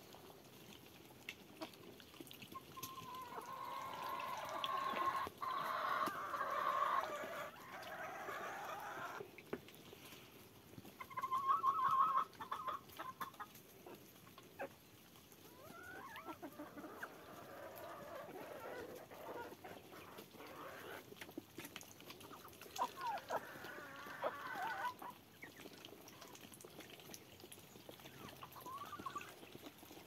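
Chickens clucking and calling in several bursts, the longest in the first third, over scattered faint clicks as the flock feeds.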